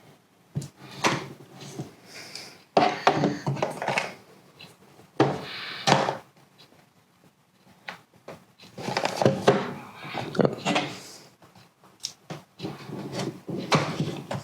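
A GAN speedcube's packaging being opened by hand: irregular rustling, scraping and sharp clicks of the box and plastic container, in bursts with short pauses between.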